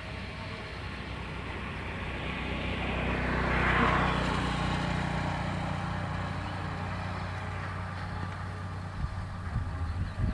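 A motor vehicle passing close by: a rush of engine and road noise that builds to its loudest about four seconds in and then fades, with a low engine hum lingering afterwards.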